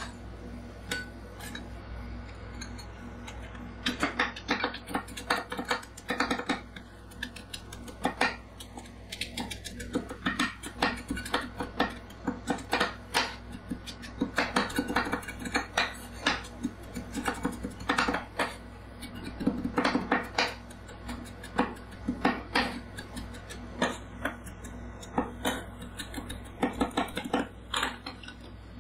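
Two metal scrapers chopping Kenji Crispy Caufrette wafer cookies on a stainless steel rolled-ice-cream cold plate: rapid, irregular sharp clacks of the blades striking the steel as the wafers are crushed, starting about four seconds in.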